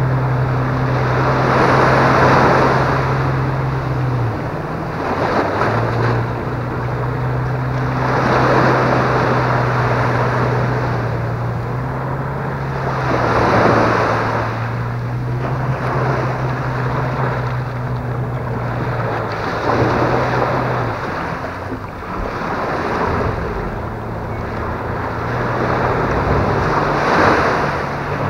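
Small surf breaking and washing up the sand, a swell of noise about every six seconds, over a low steady engine drone from a boat that cuts out briefly now and then.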